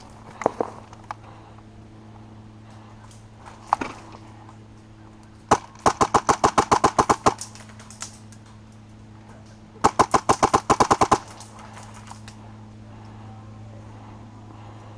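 HPA-powered Classic Army G36 airsoft rifle with a Wolverine Inferno Gen2 engine firing. A few single shots come first, then two full-auto bursts of about a dozen rapid, evenly spaced shots each, roughly four seconds apart.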